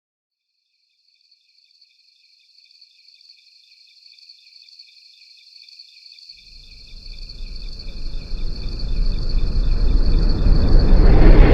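Crickets chirping steadily. From about six seconds in, a low rumble of an incoming meteor swells louder and louder until both cut off suddenly near the end.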